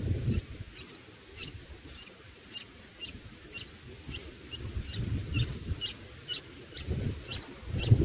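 Red-whiskered bulbul nestlings giving thin, high begging calls, about two short calls a second, while being fed at the nest. A low rumble comes in near the start and again near the end.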